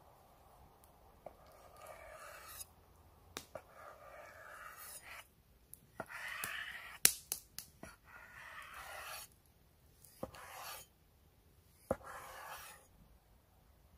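Cleaver slicing raw chicken breast on a wooden cutting board: about seven drawn strokes, each a rasping slice of up to a second and a half, with sharp knocks as the blade meets the board, the loudest about halfway through.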